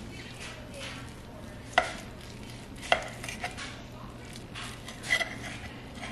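A knife sawing through the crisp browned crust of baked pork, with soft scraping strokes and sharp clicks of metal cutlery against the plate, the loudest about two and three seconds in.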